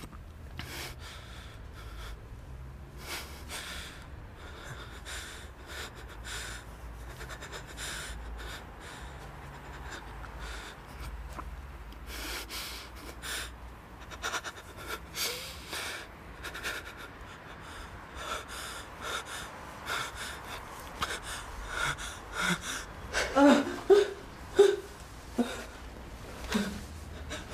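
A couple breathing and gasping, with a run of short, louder gasps toward the end.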